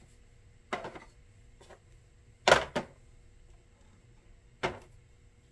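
About five short knocks and clicks of a small laser module and its metal parts being handled and set against a wooden work board, the loudest a double knock about halfway through.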